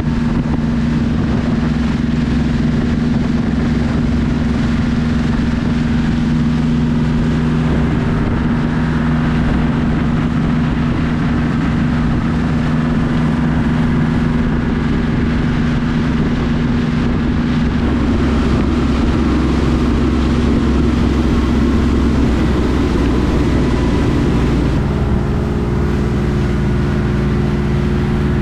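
A cabin cruiser's engine runs steadily under way at raised throttle, with water and wind noise around it. The engine note shifts about three-quarters of the way through.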